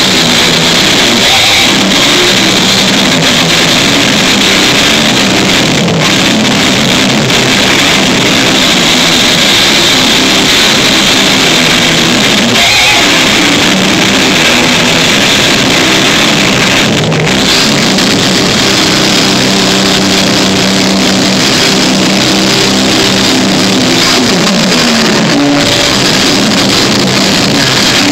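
Rock band playing loud at a sound check, recorded on a phone and heavily distorted, with pitched low notes held over a dense wash of noise.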